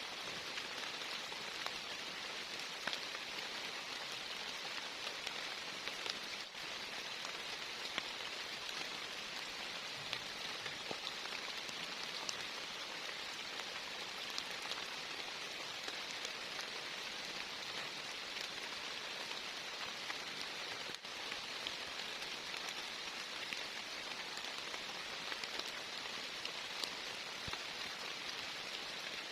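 Heavy rain falling steadily and evenly, with a few sharper drop ticks now and then.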